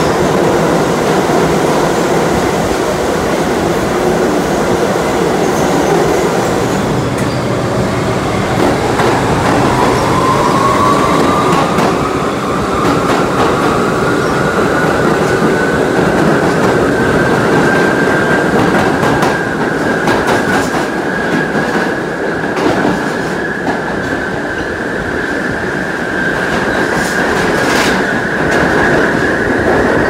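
NYC Subway 1 train (R62A cars) running through a tunnel, heard from inside the car: a loud, steady rumble of wheels on rail. A motor whine rises in pitch over about ten seconds as the train picks up speed, then holds steady. A few sharp clicks from the wheels crossing rail joints come in the second half.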